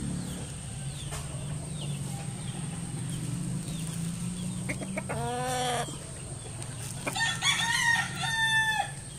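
A rooster crowing twice: a short crow about halfway through and a longer one with held notes near the end, over a low steady hum in the first half.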